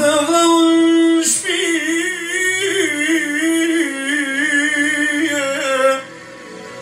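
Man singing tallava into a microphone over a Korg electronic keyboard, holding one long note at first and then a wavering, heavily ornamented line. About six seconds in the voice stops and only the quieter keyboard goes on.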